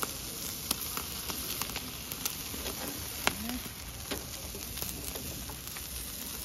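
Chicken sizzling on a charcoal barbecue grill: a steady sizzle broken by frequent sharp, irregular pops and crackles.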